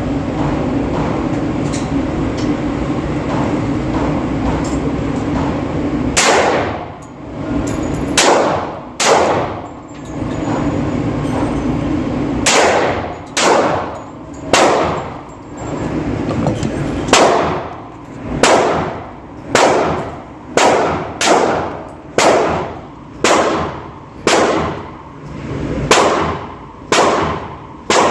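A string of pistol shots from a Glock 20 in 10mm Auto, about twenty, starting about six seconds in and coming at a pace of roughly one a second, quickening toward the end. Each shot echoes briefly.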